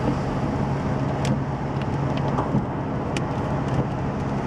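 Steady road noise of a moving car, heard from inside the cabin: an even rush of tyre and wind noise over a low engine hum, with a few faint clicks.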